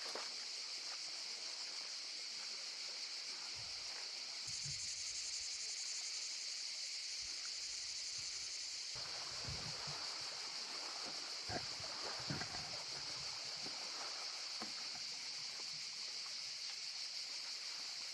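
Outdoor ambience: a steady high-pitched hiss with scattered low knocks and thuds.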